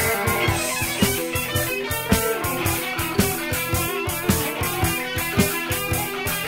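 Rock band playing an instrumental passage: electric guitar over a steady drum beat, transferred from a vinyl LP.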